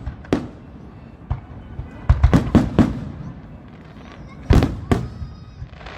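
Fireworks exploding in quick succession: a string of sharp bangs, with a dense cluster about two seconds in and another pair near the end.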